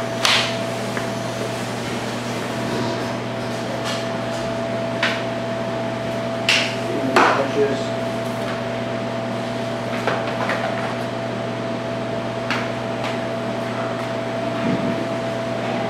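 Steady electrical hum with a handful of sharp knocks and clatters every few seconds, the loudest about 7 seconds in.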